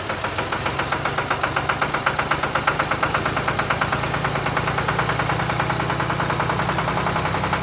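Tractor engine idling with a steady, rapid chugging.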